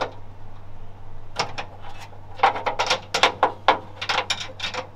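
A run of irregular metal clicks and knocks, starting about a second and a half in, as a wrench is fiddled onto a bolt that it has not yet caught, under a low steady hum.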